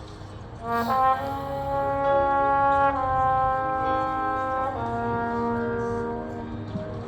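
High school marching band's brass playing loud, sustained chords, with a strong entrance about a second in and the chord shifting twice after that.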